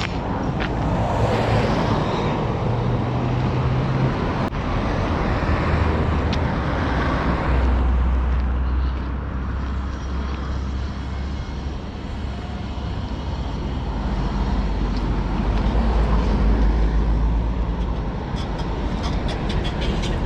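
Road traffic: motor vehicles passing, the noise swelling and fading several times over a steady low rumble.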